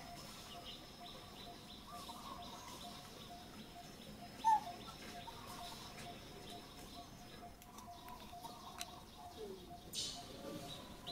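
Faint outdoor ambience of steadily trilling insects, with scattered short chirping calls and one sharper, louder chirp about four and a half seconds in.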